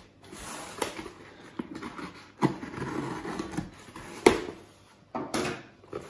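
A cardboard shipping box being cut open with a folding knife and its flaps pulled apart: scraping and rustling of cardboard and packing tape, broken by about four sharp clicks and knocks.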